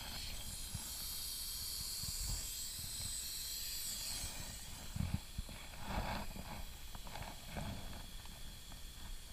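Oxygen hissing steadily from a Ventrain ventilation device on a catheter, fading out about four seconds in. A few soft knocks follow as the device and tubing are handled.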